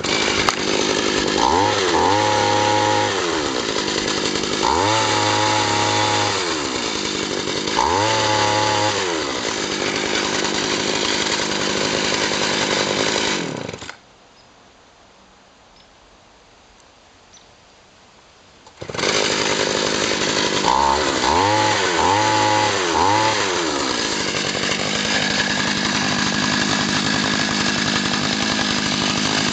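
Eskimo 8-inch gas ice auger's two-stroke engine catching and running, throttled up and back down three times, then shut off a little before halfway. After about five seconds of quiet it starts again, is blipped up four times in quick succession, and settles into a steady idle.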